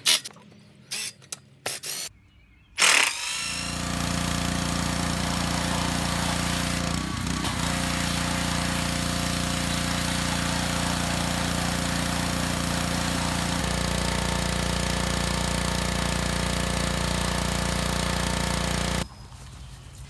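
A few short bursts of a Ridgid cordless drill backing out screws, then a pressure washer running steadily while spraying the cast iron bench panels. Its tone shifts slightly about two-thirds of the way through, and it cuts off abruptly near the end.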